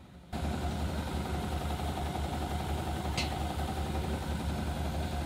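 Boat watermaker's rebuilt high-pressure pump running: a steady mechanical hum with a low, even throb.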